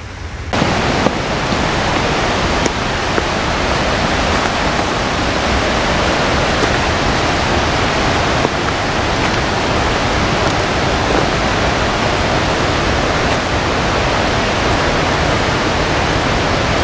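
A loud, steady rushing noise that comes in abruptly about half a second in and holds even throughout.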